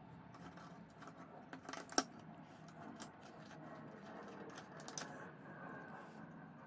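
Small metallic clicks and clinks of a flat steel plate being handled and fitted against a small metal clamp, with one sharp click about two seconds in and another near five seconds.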